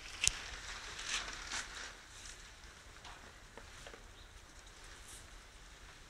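Goats eating grain from a metal pan on the floor: faint scattered clicks and rustles as muzzles and hooves touch the pan, with one sharper click just after the start.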